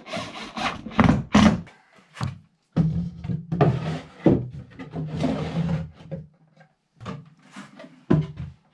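Wooden knocks and thuds from a handmade wooden drawer being handled and fitted into its wooden frame, over background music.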